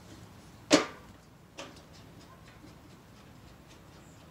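A sharp click about three quarters of a second in, a smaller click about a second later, then a few faint ticks: hands working the metal housing of a Mole-Richardson type 410 fresnel studio light.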